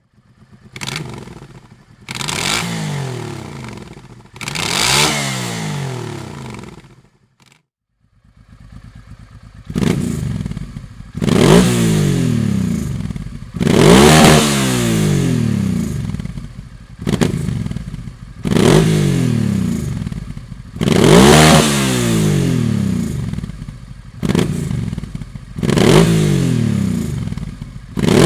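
Honda NTV 650 Revere V-twin with a Dominator aftermarket exhaust, revved repeatedly, each rev rising and falling back to idle. The sound cuts out briefly about seven or eight seconds in, then idling and revving resume.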